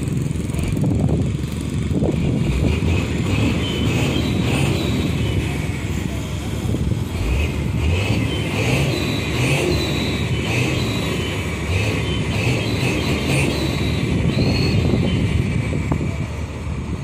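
Diesel tanker truck engines running, a steady low rumble with no rise or fall.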